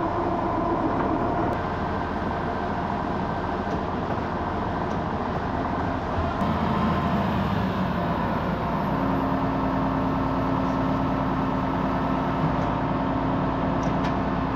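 Farm machinery engine running steadily, with a change in its tone about six to nine seconds in.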